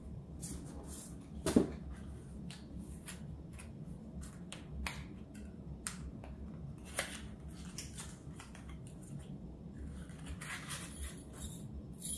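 Hands handling paper and plastic packaging from an unboxed kit: rustling with scattered small clicks and taps, the sharpest about one and a half seconds in and again near five seconds, and a longer spell of rustling near the end.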